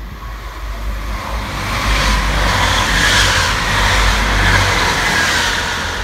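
Hull Trains passenger train passing close at speed, a loud rumble and hiss of the train on the rails that swells over about two seconds, holds at its loudest, then begins to fade near the end.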